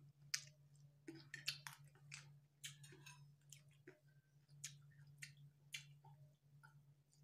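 Faint chewing and wet mouth clicks as a spoonful of parijoto-berry rujak is eaten, over a low steady hum.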